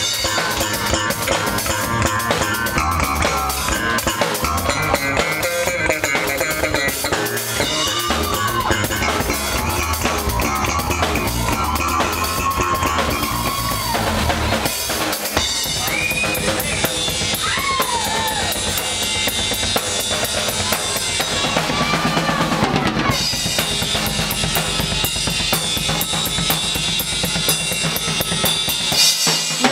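A funk band playing a groove: a drum kit with kick, snare and rimshots over a bass line, with a lead part sliding between notes. The music drops out for a moment about two-thirds of the way through, then the groove carries on.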